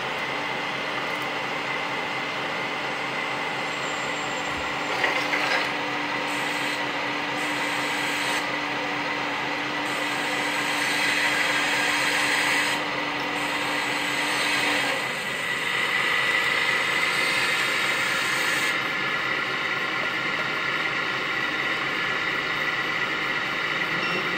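Hydraulic pump of a 1/14-scale RC hydraulic excavator running with a steady whine. Its tone shifts several times as the arm, bucket and tracks are worked, with a few short knocks about five seconds in.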